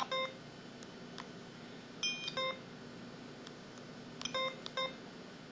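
Short electronic beeps from an IM-6400 mobile phone: one near the start, then two small groups of beeps about two and four and a half seconds in.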